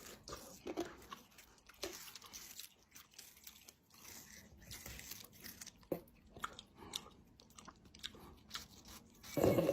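Crunchy chewing: an irregular run of small crunches and clicks, with a louder burst near the end.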